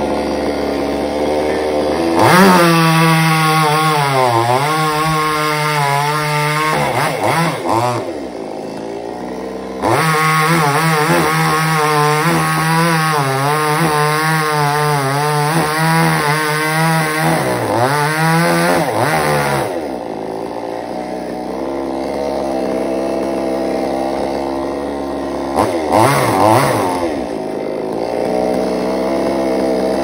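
Two-stroke chainsaw cutting through a coconut palm trunk. It revs hard twice, for about five seconds and then about ten, with the pitch wavering as the chain bites into the wood. Between the cuts and afterwards it idles, with a short blip of throttle near the end.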